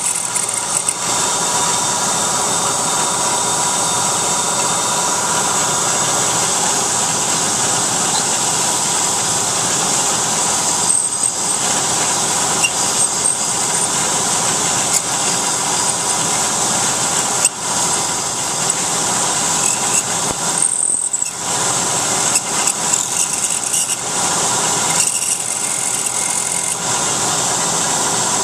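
CNC mill spindle running as a twist drill cuts into aluminium bar under flood coolant: a steady whine over the hiss of cutting and coolant spray. The high cutting sound eases briefly a few times.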